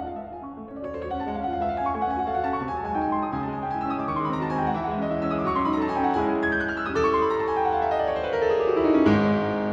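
Piano music, with quick runs of notes falling in pitch through the second half.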